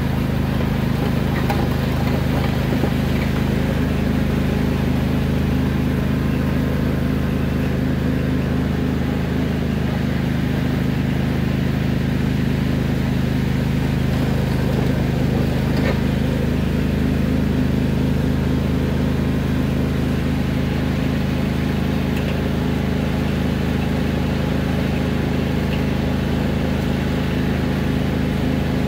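Riding lawn tractor's engine running steadily under load as it pulls a drag over gravel. Worn bearings in its drive belt pulleys add to the noise, which is pretty loud.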